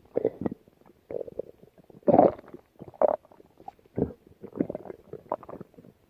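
Stomach growling: a run of short, irregular gurgles and rumbles, about eight in a few seconds, the loudest about two seconds in.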